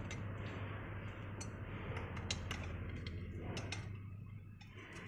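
Small irregular metallic clicks and taps as bolts and a hex key are handled against a chrome steel ring, over a steady low hum.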